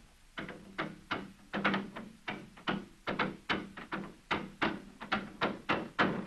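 Double bass bowed in short, choppy strokes, about three a second, each note starting with a scratchy attack and repeating much the same low pitch: an amateur's practice tune.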